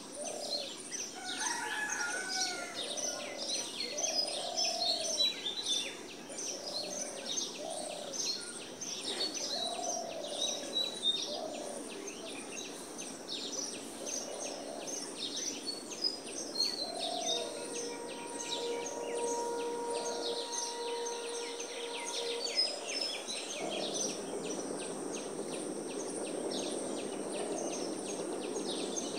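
Outdoor chorus of many small birds chirping and twittering without pause, with a lower, coarser bird call repeated about every second and a half through the first half. A faint steady hum sounds for a few seconds past the middle.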